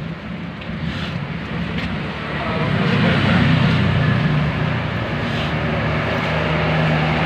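Large bus's engine running with road noise as it drives by. It grows louder about two and a half seconds in as the bus draws near.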